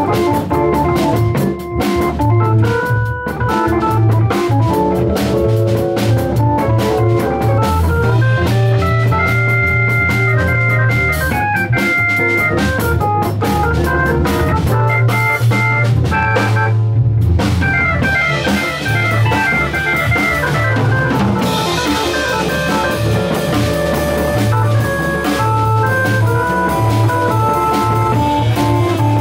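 Live jazz band playing, led by a Hammond-style drawbar organ playing a melodic line and chords over a drum kit and electric guitar, with a strong low bass line. The band drops out for a brief break about seventeen seconds in, then comes back in.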